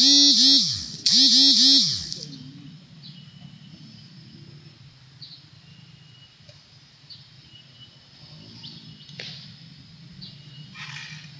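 A man's voice, very loud and close, giving two warbling Tarzan-style yells one after the other, each rising and falling about three times. After them come faint bird chirps over a low outdoor background.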